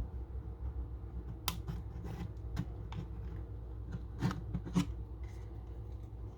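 A plastic pry tool scraping and clicking against a compact digital camera's plastic casing as it is worked into a seam. There are a few sharp clicks, the loudest a pair near the end.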